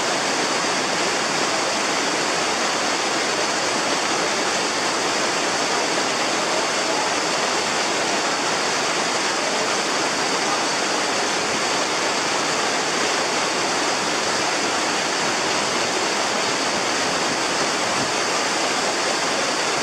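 Fast, muddy mountain stream rushing over rocks: a steady, unbroken wash of water noise.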